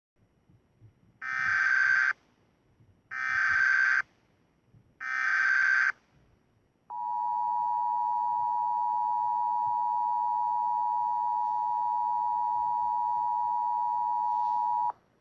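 Emergency Alert System tones: three short bursts of SAME header data, each about a second long, then the two-tone attention signal held steady for about eight seconds and cutting off abruptly. The tones mark the start of an emergency alert broadcast, here a Civil Danger Warning.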